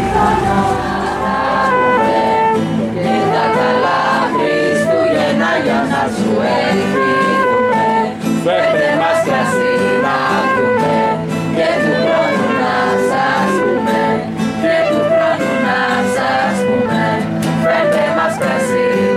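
Group of carolers singing traditional Greek Christmas kalanta, accompanied by acoustic guitar and a flute.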